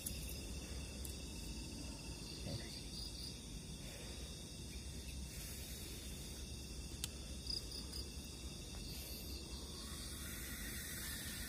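Crickets chirring steadily at night: a thin, continuous high trill.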